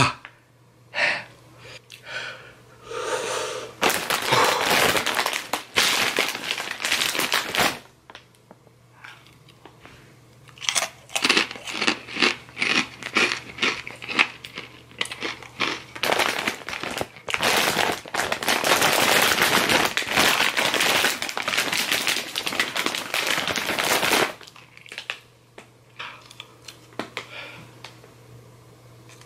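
Crinkling and crunching of a snack bag being handled and Takis rolled corn tortilla chips being chewed. It comes in two long loud stretches, then thins to scattered quieter crunches near the end.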